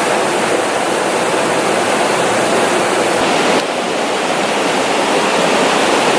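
Loud, steady rushing of river water over rocks, the Linville River's rapids close by.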